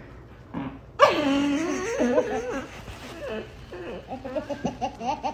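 A toddler's voice: a sudden long, wavering squeal about a second in, then shorter broken cries and laughs.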